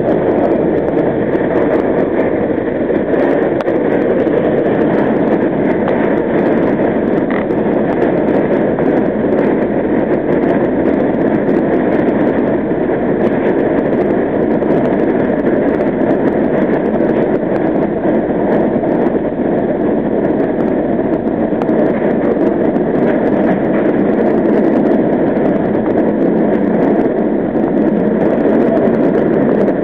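NYC Subway R38 car running at speed through a tunnel, heard from inside the car: a loud, steady running noise of the train on the track.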